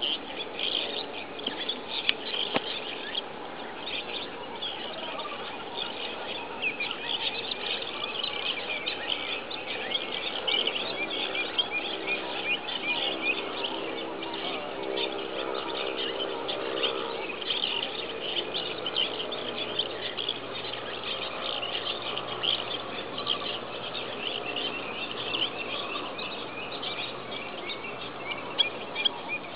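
Dense, continuous chorus of many small birds chirping, short high calls overlapping one another.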